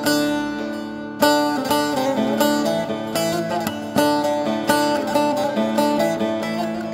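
Instrumental music: a plucked string instrument playing a melody of quickly picked notes, each striking sharply and fading.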